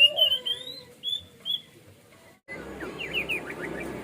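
Orange-headed thrush singing: a string of loud, slurred whistled phrases in the first second and a half. About two and a half seconds in, after an abrupt break, comes a fainter, quick run of short falling notes over steady background noise.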